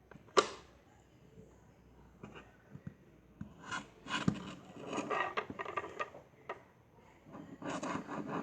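Play-dough being cut and handled on a board: a sharp knock about half a second in, then small taps and stretches of scraping and rustling as the cutting tool works through the dough.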